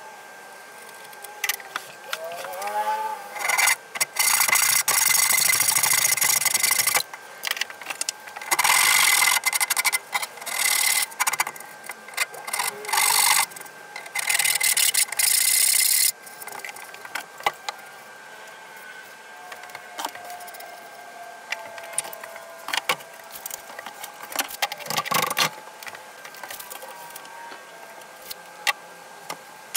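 Hand rasp scraping across the end grain and edge of a cypress board in runs of long strokes through the first half, then quieter handling with scattered clicks and a single knock.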